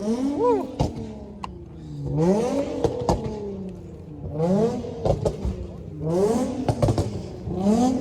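Truck engine revved again and again, its pitch rising and falling about five times, with a few sharp rattling clicks.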